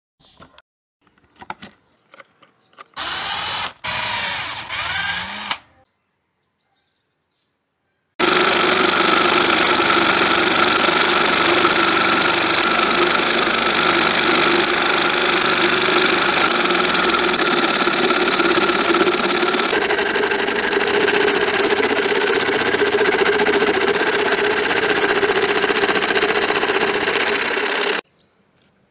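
Homemade PVC scroll saw running and cutting a wooden blank: a loud steady motor-and-blade buzz that starts abruptly about eight seconds in and cuts off suddenly near the end. Before it come a few short, fainter mechanical sounds and then a few seconds of silence.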